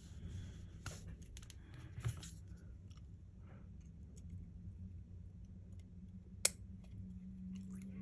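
Small metal tools clicking and scraping against an opened iPhone's internal parts, with one sharp click about six and a half seconds in, over a steady low hum.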